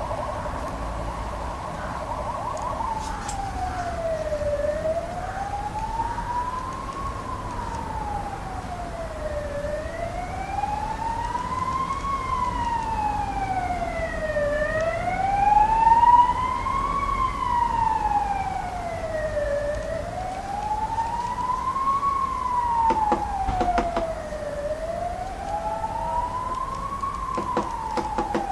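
Emergency vehicle siren: a rapid yelp for the first few seconds, then a slow wail rising and falling about every five seconds.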